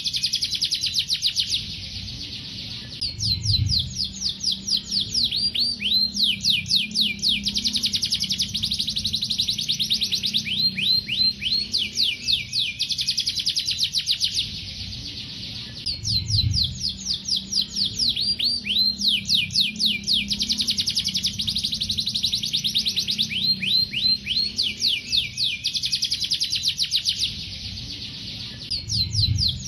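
Male canary in full song: long phrases of very fast, repeated high trill notes, broken by short pauses about every twelve seconds, over a faint low hum.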